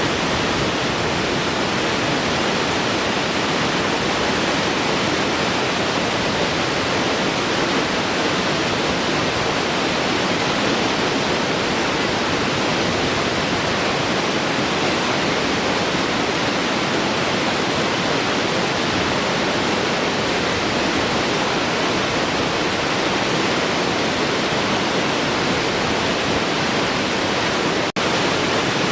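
Large waterfall flowing: a steady, even rush of falling water, broken by a momentary dropout about a second before the end.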